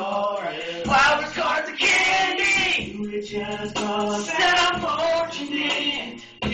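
A song with a singer playing as background music.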